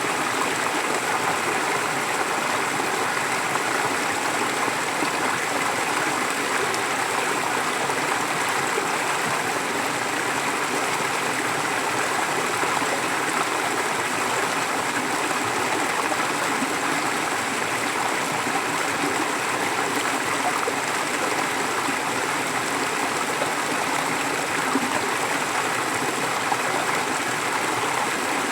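Forest stream flowing steadily: an even, unbroken rush of running water.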